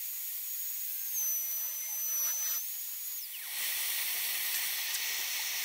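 Homemade CNC router cutting 6 mm plywood with a 2-flute 6 mm router bit: a steady high hiss with a thin high whine over it. About three seconds in, the whine falls away and the hiss grows louder.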